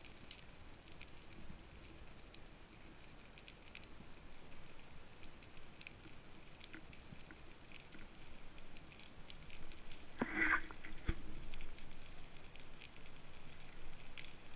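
Underwater ambience: steady faint crackling of many small clicks, typical of snapping shrimp on a rocky sea bottom. About ten seconds in there is a short, louder rush of noise, followed by a single low knock.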